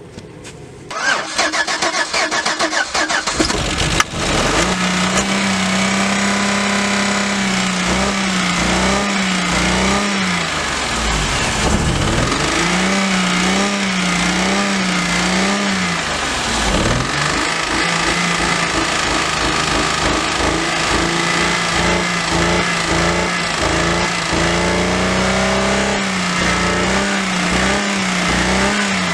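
Chevrolet Impala engine, run with its oil burned out and overheating, cranked and catching about a second in, then held at high revs with its pitch wavering up and down, dipping briefly twice.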